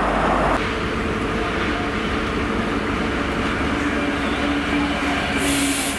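Class 66 diesel-electric freight locomotive, with its two-stroke V12 engine, running through the station hauling freight wagons. The engine note is steady over the noise of the wheels on the rails, and there is a short high hiss near the end.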